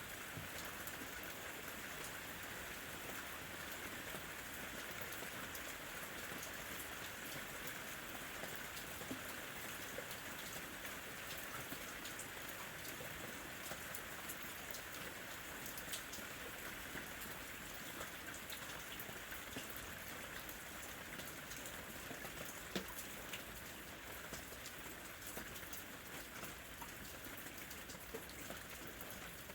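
Steady rain falling, an even patter with scattered individual drops ticking on a surface and a few louder drips standing out now and then.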